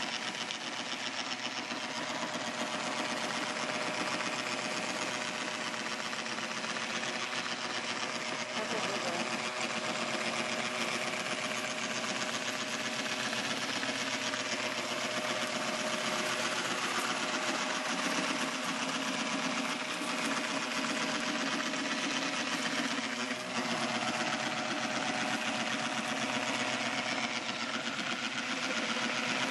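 Electric drive and blade motors of a small homemade 12-volt DC robot lawn mower running steadily. It makes a fast, rattling buzz with a steady whine as the mower drives and cuts through grass.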